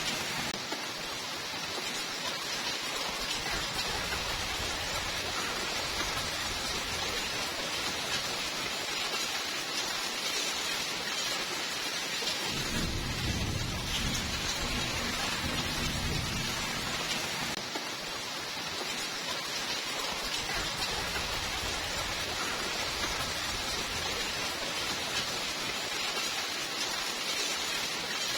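Steady rain falling, with a low thunder rumble rolling in about halfway through for several seconds and another starting near the end.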